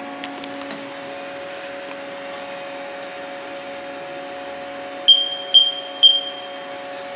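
CNC vertical machining center humming steadily, with a few fixed tones over it. Near the end come three short, loud, high beeps about half a second apart.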